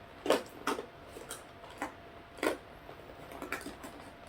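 Crinkly plastic snack bag being handled and tugged at while someone tries to open it: about half a dozen separate sharp crackles.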